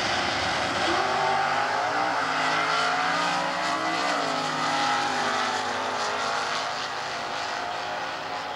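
Two Stock-class drag racing cars' engines running at full throttle down the quarter-mile side by side, with a dip in pitch about four seconds in. The sound fades near the end as the cars pull away down the track.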